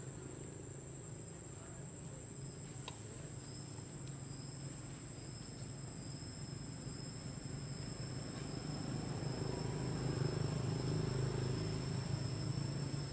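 Insects calling steadily outdoors as two unbroken high-pitched tones, the second joining about two seconds in. Underneath, a low hum grows louder toward the end.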